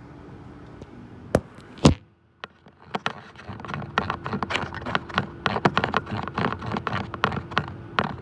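Handling noise: two sharp knocks, then after a brief dropout a run of rapid, irregular clicks and taps over a faint steady hum.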